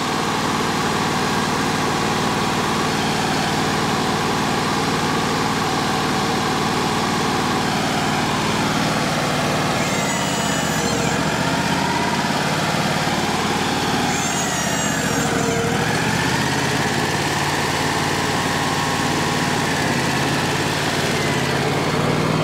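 Wood-Mizer LT35HD sawmill's engine running steadily, with two brief dips in pitch that recover, about ten and fourteen seconds in.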